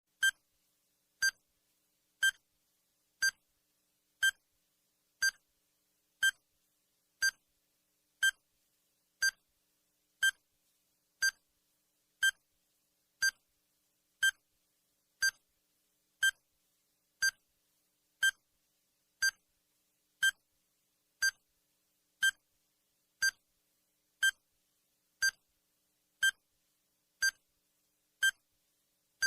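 Countdown timer sound effect: a short electronic beep, or click-like tick, once every second, evenly paced, with silence between.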